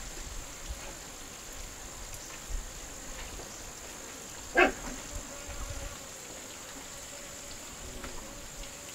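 A single short, loud bark-like animal call about halfway through, over a steady faint high-pitched hum.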